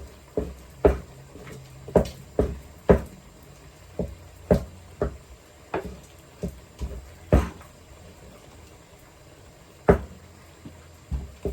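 Wooden rolling pin pounding boiled yam in a wooden bowl: a string of irregular dull thuds, roughly one or two a second, with a pause of a couple of seconds before a last few strikes.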